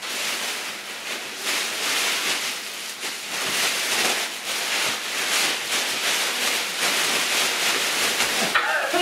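Large black plastic trash bag rustling and crinkling as it is handled and pulled up around a person stepping into it.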